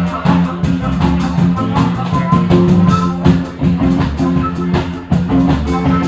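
Live band playing an instrumental passage with guitar, bass and drum kit over a steady beat.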